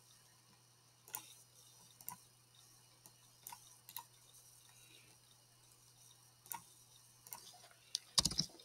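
Scattered computer mouse clicks, then a quick run of keyboard keystrokes near the end as text is typed, over a faint steady hum.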